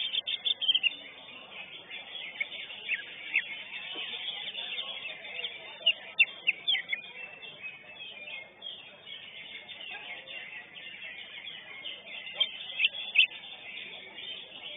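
Greater green leafbird (cucak hijau) singing in rapid runs of sharp, high chirps and whistles, with the loudest bursts at the start, about six seconds in and near the end, over a background of other songbirds.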